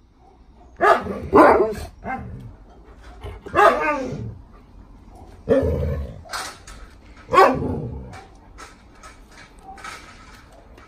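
Alaskan Malamutes barking at each other in a squabble: a run of short barks and longer calls that bend in pitch over the first eight seconds, then only faint clicks.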